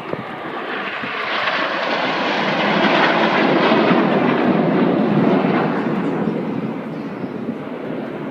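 Formation of Red Arrows BAE Hawk jets flying past, a rushing jet engine noise that swells to its loudest about three to five seconds in and then fades away.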